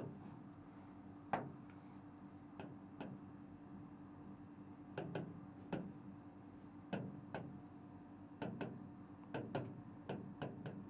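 Pen tapping and rubbing on the glass screen of an interactive whiteboard as words are written: irregular short taps and faint scratches, over a faint steady hum.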